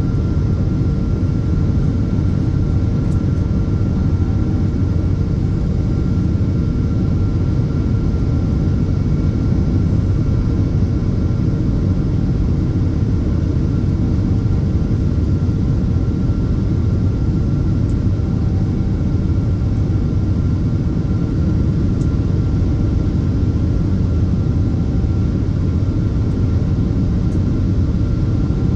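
Cabin noise inside a Boeing 777-200ER during the climb after takeoff: a steady deep roar of the twin jet engines and airflow, with faint steady humming tones over it.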